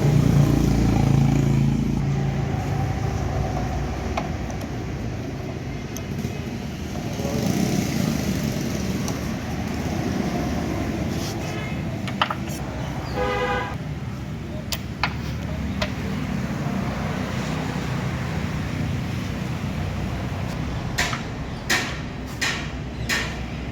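Passing road traffic rumbling steadily, with a short vehicle horn toot about halfway through. Sharp metallic clicks and taps of hand tools come in, several near the end.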